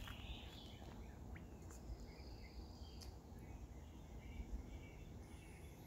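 Quiet outdoor background: scattered faint high chirps over a low, fluctuating rumble.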